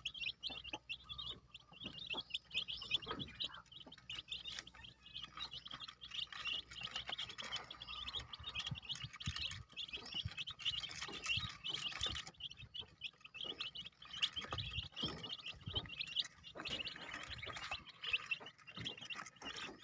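A brood of one- and two-week-old kampung chicken chicks peeping continuously in many quick, high chirps, with scattered light knocks among them.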